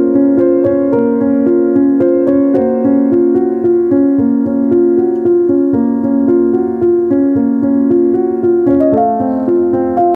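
Background music: a slow piano melody of held notes.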